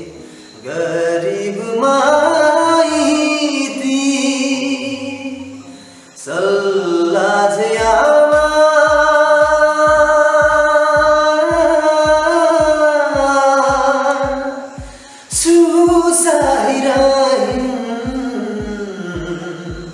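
A young man singing a slow song solo, unaccompanied at first; from about eight seconds in a steady low beat, roughly two and a half strokes a second, runs under his voice.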